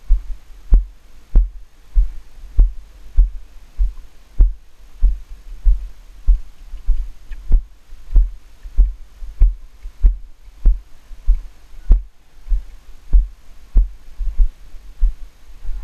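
Steady rhythm of low thumps, about one and a half a second, from a helmet-mounted GoPro jolted with each stride of a horse moving at a steady gait over arena sand.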